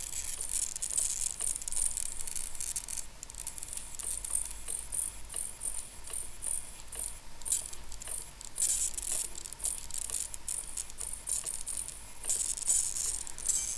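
HobbyKing HK-5330 ultra-micro digital servo on a Blade 130X's tail, chattering in a high-pitched, crackly rattle that comes in uneven bursts.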